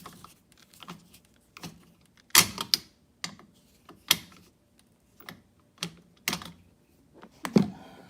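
Irregular clicks and short scrapes of a screwdriver working the terminal screws of an electrical outlet, tightening the ground connection, with two louder rasps about two and a half seconds in and near the end.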